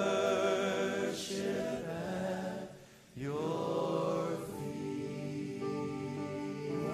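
Slow worship song with voices singing long-held notes over the music, with a short break about three seconds in before the next held phrase.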